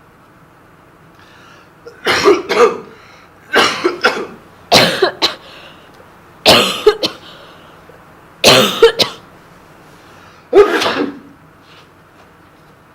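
A person coughing hard in six separate fits, each a quick double cough, spaced about one to two seconds apart.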